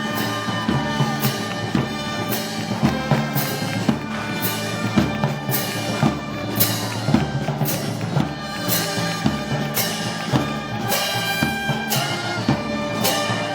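Brass band playing festival march music, with sustained brass chords over drums and cymbal clashes about every three-quarters of a second.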